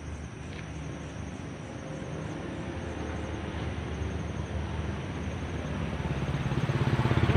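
Motorcycle engine running steadily and growing louder throughout, as it draws nearer or picks up speed.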